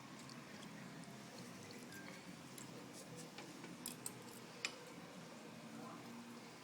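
Faint, sparse clicks and taps of a pet bird's beak as it eats noodles from a bowl, over quiet room tone.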